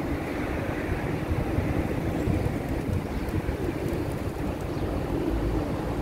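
Steady rumble of road traffic from an adjacent street, with a deeper low rumble building near the end.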